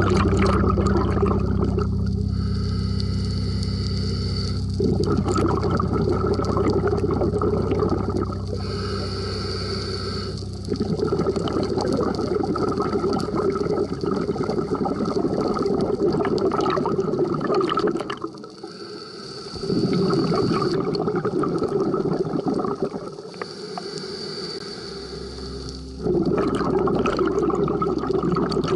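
Scuba diver breathing through a regulator underwater: a thin hiss on each inhale, then a few seconds of rumbling, bubbling exhaled air. The cycle repeats about four times.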